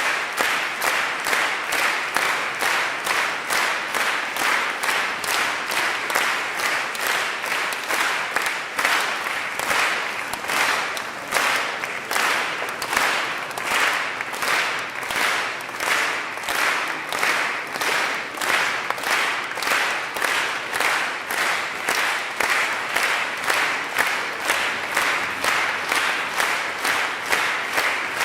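Audience applauding, the clapping falling into unison at a steady beat of about two claps a second.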